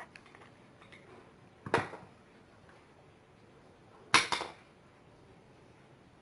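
Metal hand tools clinking and knocking as a small child handles them: a few faint clicks, a sharp knock a couple of seconds in, and a louder clink about four seconds in that rings briefly.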